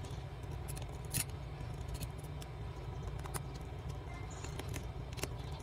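Small sharp clicks and ticks from a small Phillips screwdriver working the screws out of the metal cover plate inside a smartphone, over a steady low hum.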